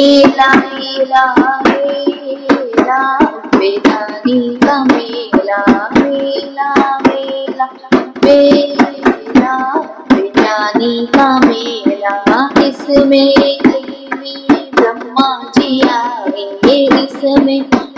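A voice singing a Hindi devotional bhajan to Mother Durga, with steady rhythmic hand claps keeping the beat.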